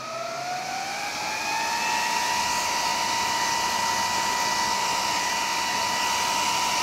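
Original high-power fan in a Dell PowerVault MD1200 disk shelf's power supply spinning up with a rising whine over about the first two seconds, then running steadily at full speed with a loud rush of air.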